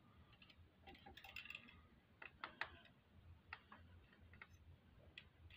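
Faint, scattered light metallic clicks and taps from a long pick working against the tappets in a motorcycle V-twin engine's open cam chest, lifting the lifters so the cam can go in.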